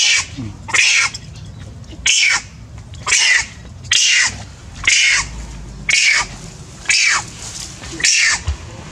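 A macaque monkey giving a string of short, high screams, about one a second, each falling in pitch.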